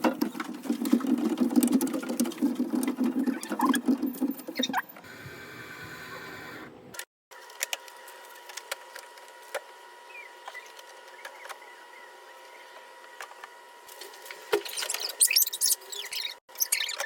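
Rustling and clattering of packaging and food containers being handled during refrigerator organising. It is busiest in the first few seconds and again near the end, with sparser clicks and a faint steady tone in between.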